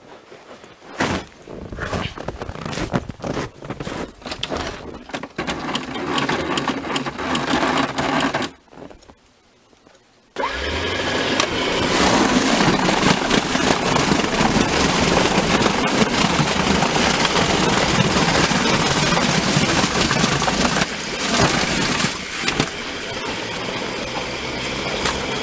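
Scraping and knocking on ice. About ten seconds in, an electric snow blower starts suddenly and runs loud and steady, chewing through hard ice and snow with a dense crunching clatter over a low motor hum.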